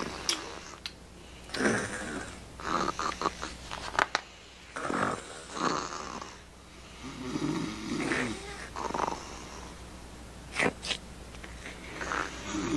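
Playful snoring sounds: a series of breathy snores, each a second or two apart, one of them with a wavering whistly tone.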